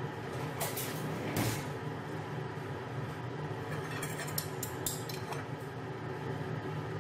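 A spatula scraping and clinking against a cooking pot as stir-fried noodles are stirred and lifted out. The clinks come in two clusters, a few about a second in and a quicker run around four to five seconds in, over a steady low hum.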